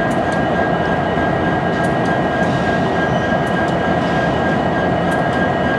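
Union Pacific diesel-electric locomotives rolling slowly past, their engines running with a steady rumble and a thin, steady high whine above it.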